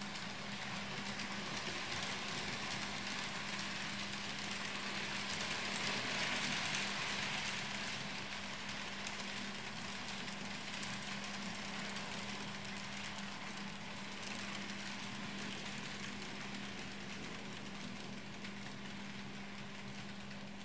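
N-scale model train running along the layout track: the small electric motor and the wheels on the rails give a steady hum and hiss, loudest about six seconds in as it passes closest.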